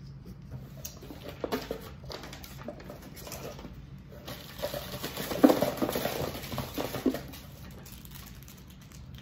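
Rustling and crinkling of packaging as a cardboard snack box is rummaged through and a paper card and wrapped cookie are handled, with a cluster of louder rustles and knocks about five to seven seconds in.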